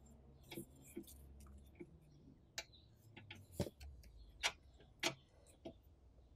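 Faint, irregular clicks from a scissor jack's crank handle and screw as the jack is wound down under the engine, about one click every half second to second, the loudest around the middle.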